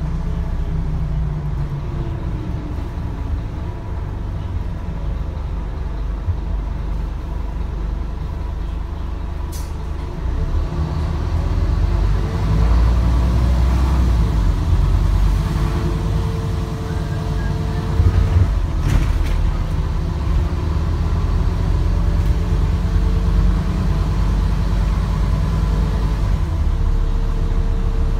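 Scania N230UD double-decker bus's five-cylinder diesel engine and transmission running under way: a steady low drone with a whine that rises and falls in pitch as the bus changes speed, growing louder about twelve seconds in as it accelerates. A few short knocks and rattles come through, around ten and nineteen seconds in.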